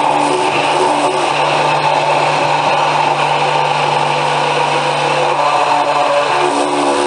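Electric blender running steadily: a constant motor hum under an even whirring rush.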